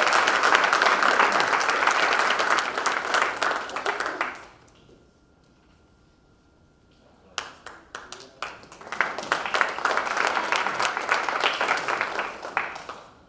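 Audience applauding, dying away about four seconds in. After a few seconds of quiet, a second round starts with a few scattered claps, swells into full applause, and fades out near the end.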